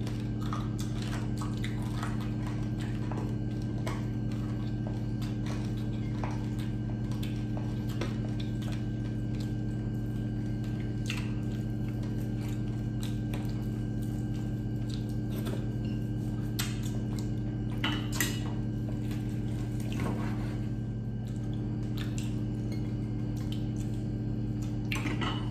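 Crunching and chewing of crispy fried chicken skin and pork, with scattered clicks and the odd clink of cutlery on a plate, over a steady low hum.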